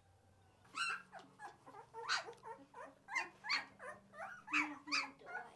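A litter of newborn livestock guardian dog puppies whimpering and squealing, short high calls coming about three a second from about a second in.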